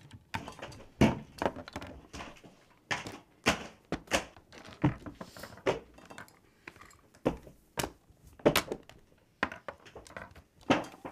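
A series of irregular thuds and knocks, roughly one or two a second, with faint rustling between them.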